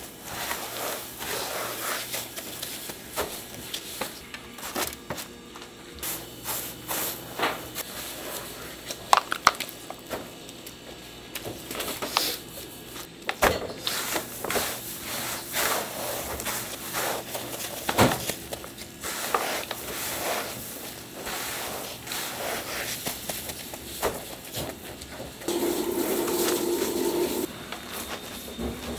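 Gloved hands working bread sandwiches through wet batter and a tray of breadcrumbs: irregular crumbly rustling and wet squelching, with a few sharp knocks, over a low steady hum. Near the end a steadier drone sounds for about two seconds.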